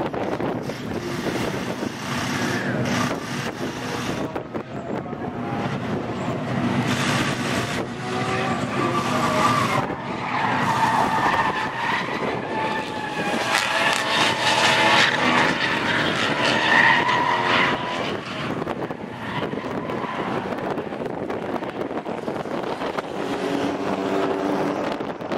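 Drift cars sliding sideways through the corners, their engines revving up and down and their tyres squealing under wheelspin. The squeal and engine noise are loudest about halfway through, then ease back.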